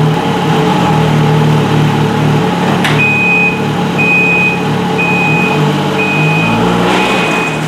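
Ski-Doo snowmobile's Rotax engine idling. About three seconds in there is a click, then the reverse warning beeper starts: five short, high beeps about a second apart, the sign that the reverse gear has been engaged.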